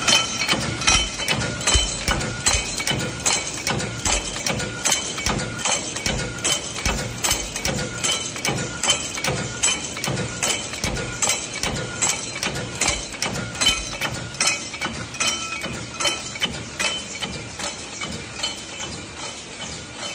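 One-die, one-punch hot forging machine stamping red-hot steel blanks into special-shaped fasteners: a steady run of metallic blows, about two a second, with a ringing clank on each stroke.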